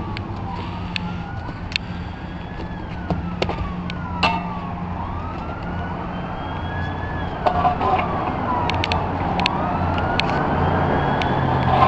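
Emergency vehicle siren wailing in slow rising and falling sweeps, each taking a few seconds, over a steady low traffic hum, with scattered sharp clicks.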